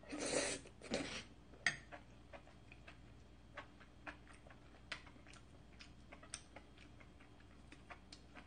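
Close-miked eating of cream tagliatelle pasta: two short noisy bursts in the first second as a forkful goes into the mouth, then quiet chewing with small scattered mouth clicks.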